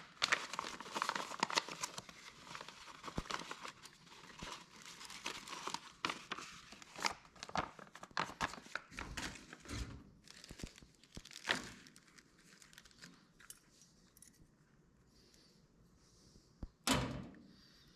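Packaging crinkling and rustling as new fuel pump parts are unwrapped and handled, with scattered sharp clicks of small parts and one louder knock near the end.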